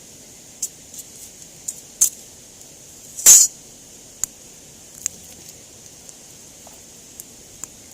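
Campfire wood crackling: scattered sharp pops, with one louder, longer pop about three seconds in, over a steady high hiss.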